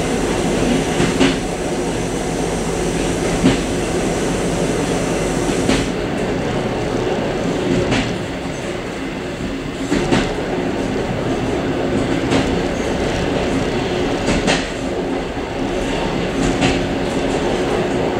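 Suburban passenger train running along the track, heard from inside its vestibule: a steady rumble and hum with a sharp wheel clack over a rail joint about every two seconds.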